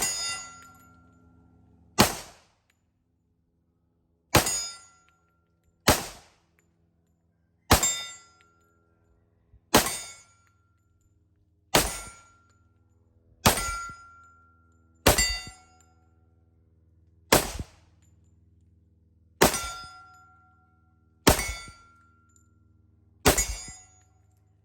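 FNX-45 Tactical .45 ACP pistol fired slowly, one shot about every two seconds, thirteen shots, with steel targets ringing briefly after many of them.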